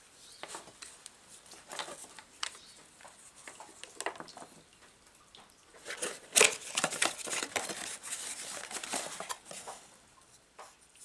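Hands handling parts on a wooden bench, with small clicks and knocks, then a cardboard box being opened and a CAV 296 fuel filter element pulled out of it. Cardboard scrapes and rustles for a few seconds, with one loud sharp snap about six seconds in.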